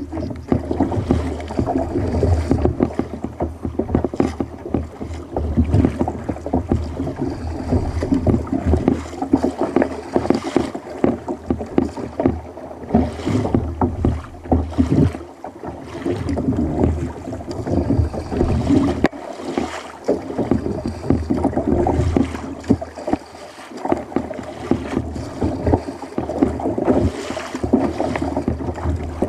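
Sit-on-top fishing kayak being paddled with a double-bladed paddle: the blades splash into the water stroke after stroke, and water rushes along the hull.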